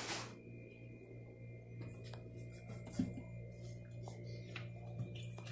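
Light knocks and clicks of a gloved hand wiping ceramic wall tiles with a cloth, one sharper knock about three seconds in. Under it runs a steady hum with a thin high whine.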